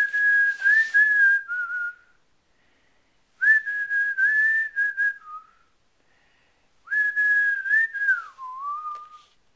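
A man whistling a tune in three short phrases with pauses between, each a run of clear notes at about the same pitch, the last one sliding down lower at its end.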